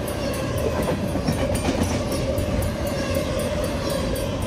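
Double-stack intermodal freight cars of a CN train rolling past at speed: steady wheel rumble and clatter on the rails.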